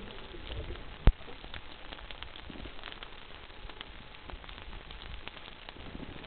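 Underwater crackling on a coral reef: a steady hiss full of scattered small clicks, with one sharp knock about a second in.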